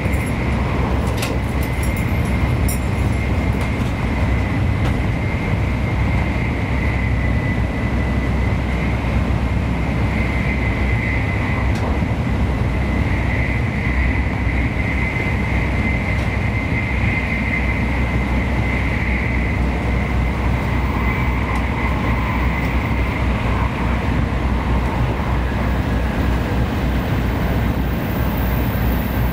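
Tokaido Shinkansen N700-series train running at speed, heard inside the passenger cabin: a steady low rumble with a faint high whine over it.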